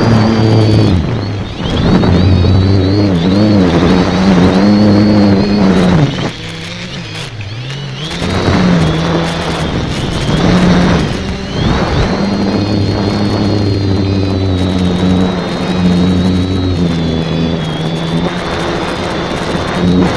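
The electric motors and propellers of an X550AIOP multirotor, heard from its onboard camera while it flies. The drone's pitch rises and falls with throttle, and a thin high motor whine sits on top. It drops quieter for about two seconds some six seconds in, then picks up again.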